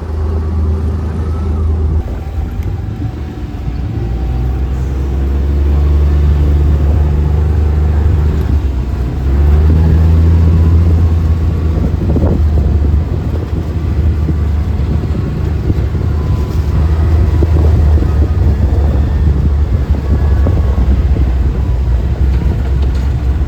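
A vehicle engine running steadily under load with a heavy low rumble, heard from aboard; it grows louder over the first several seconds.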